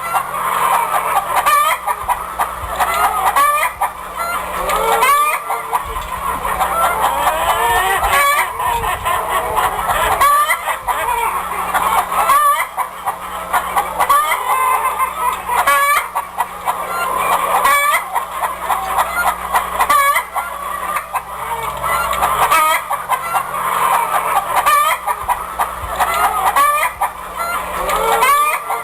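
A flock of chickens clucking continuously, with roosters crowing among them.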